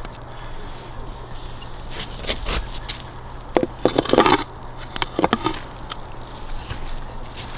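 Cooking over an open campfire: crackling and scraping, with a cluster of louder clicks and knocks in the middle.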